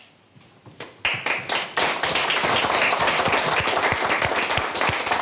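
A small group of people clapping their hands, starting about a second in and carrying on steadily.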